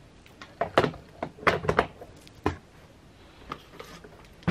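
A handful of sharp knocks and thumps, in small clusters from about half a second to two and a half seconds in.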